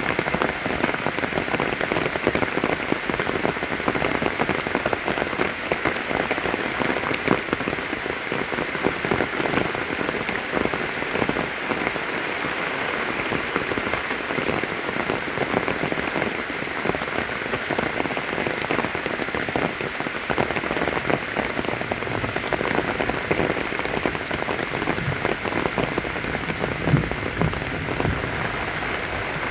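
Steady rain falling, a dense patter of countless drop hits. A brief low thump sounds near the end.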